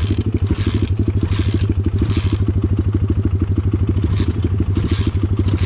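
Single-cylinder pit bike engine idling close by with a fast, even pulse, while a second pit bike is kicked over about five times, each stroke a short scraping clatter, without the engine catching.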